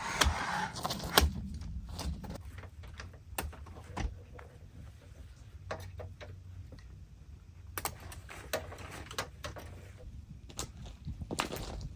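Irregular knocks and clicks over a faint, steady low rumble, with a cluster of knocks near the end.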